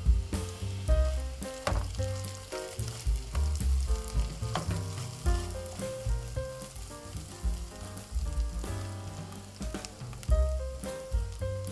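Chicken pieces and sliced mushrooms sizzling as they fry in a nonstick pan, stirred now and then with a silicone spatula, over light background music.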